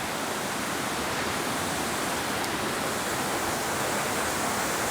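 Waterfall on a small woodland stream: a steady, even rush of falling water.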